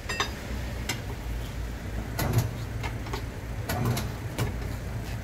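Tyre changer running with a steady low motor hum while a stiff 45-series tyre is worked onto an alloy rim, with scattered clicks and knocks from the bead and mounting head against the rim.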